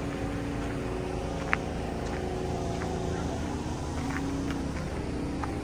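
A car engine running steadily, a low even hum with no change in pitch. There is one sharp click about one and a half seconds in.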